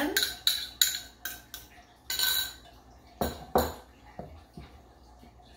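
A metal fork scraping and tapping against a ceramic bowl as mashed banana is knocked out of it, with several quick clinks in the first second or two. This is followed by a couple of dull knocks and a few light ticks of a spoon working into flour in a glass mixing bowl.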